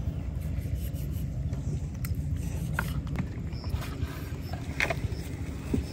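Kitchen knife cutting raw beef on a wooden cutting board, with a few light knocks of the blade against the board, over a steady low rumble.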